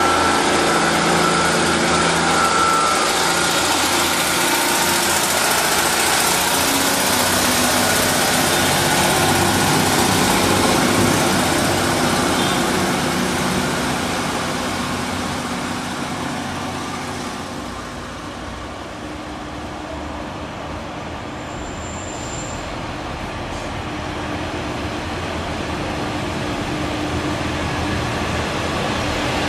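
Diesel multiple-unit trains at a station platform. A Northern diesel unit runs loudly alongside and then fades away over about the first third. A Pacer railbus's diesel engine then grows steadily louder as it approaches and pulls into the platform.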